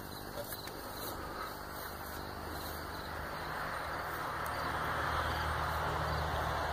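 A low, steady motor-like hum that slowly grows louder, under a faint hiss.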